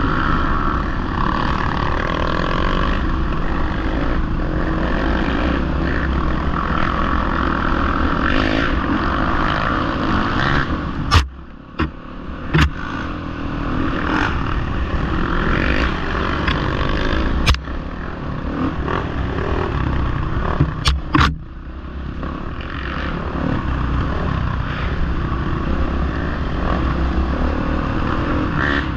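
Off-road dirt bike engines running and revving as the bikes climb a rough trail, with several sharp knocks in the middle and the engine noise dropping briefly twice.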